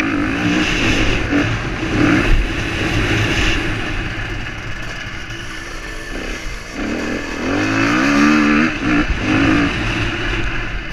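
KTM motocross bike's engine, close to the on-bike microphone, revving hard and easing off as the rider works the track. The engine's pitch drops about six seconds in, then climbs steeply a second or so later.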